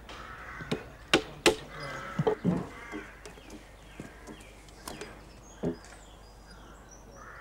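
Wooden mallet driving a chisel into a green timber beam: a few sharp knocks, the two loudest about a second in, with fainter knocks later.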